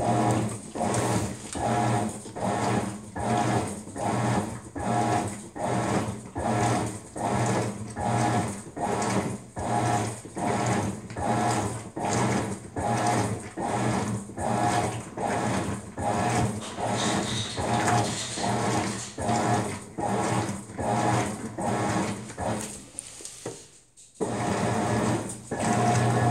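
Maytag MVWX655DW1 top-load washing machine agitating a load of dish towels in deep water, its drive motor humming in even strokes about twice a second as the wash action swishes back and forth. Near the end the strokes fade and stop for about a second, then start again.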